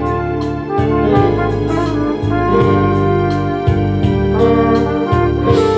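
A flugelhorn plays a melody of held notes over a backing track with a bass line and a steady light percussion beat.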